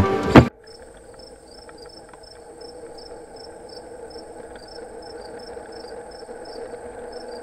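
Guitar music cuts off half a second in, leaving quiet city traffic ambience. Over it runs a steady high-pitched whine with regular high chirps, about two a second.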